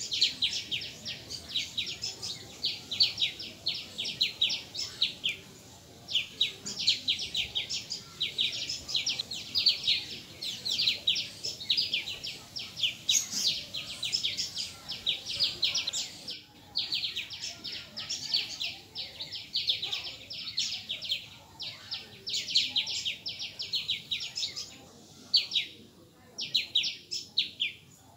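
Rapid trains of high, sharp chirps, many a second, in bouts of a few seconds with short pauses between them.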